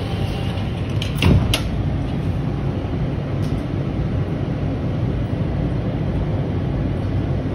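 Steady low rumble inside a subway train car after its doors have closed, with two sharp knocks about a second in.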